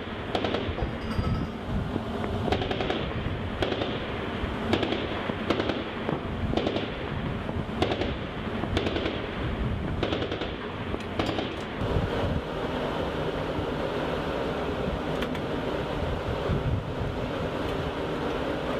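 Mk 38 25 mm naval gun (an M242 Bushmaster chain gun) firing single shots, about ten of them at roughly one a second for the first eleven seconds. After that, steady wind noise.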